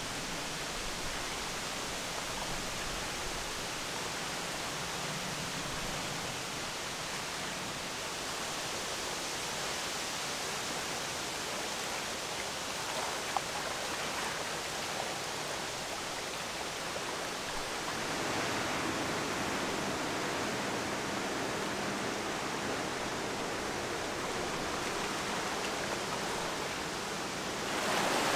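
Steady, even rushing noise of wind and river water, with one faint click about halfway through; it swells a little louder right at the end.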